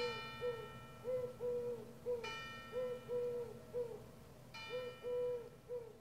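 Church bell tolling, three strokes a little over two seconds apart, each left ringing. Under them a bird hoots softly in a repeated short-long-short phrase.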